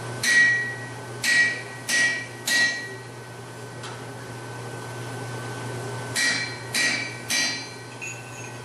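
Seven hand-hammer blows on red-hot steel bar on an anvil, each with a short metallic ring: four quick strikes, a pause of about three seconds, then three more.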